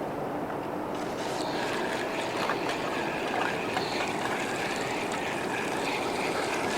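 Steady wash of ocean waves and wind noise, with a few faint ticks and a faint high tone coming in about a second in.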